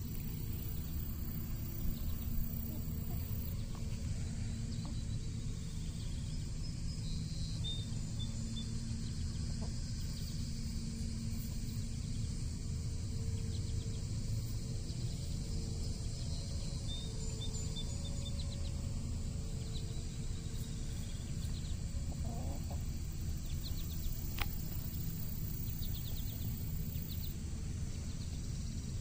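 Free-range chickens clucking softly now and then, with faint high chirps of small birds over a steady low rumble.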